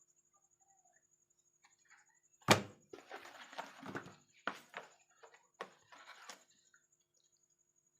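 A sharp thump about two and a half seconds in, then several shorter knocks and rustles, as books and paper are handled.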